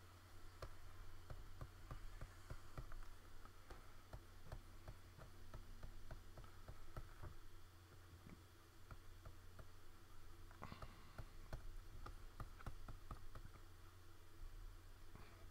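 Faint, irregular clicks and taps from working a computer mouse or pen tablet during digital colouring, several a second, over a steady low electrical hum.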